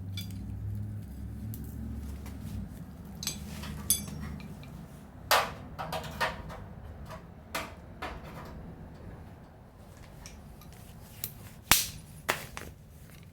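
Scattered metallic clinks and knocks of hand tools and steel parts being handled and set down, about a dozen in all, the sharpest near the end. A low hum runs under the first few seconds.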